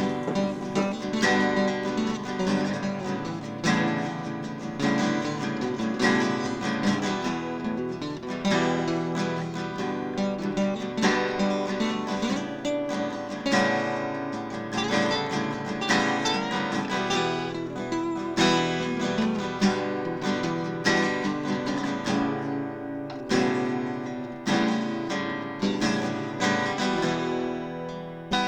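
Background music: acoustic guitar playing, strummed and plucked in a steady rhythm.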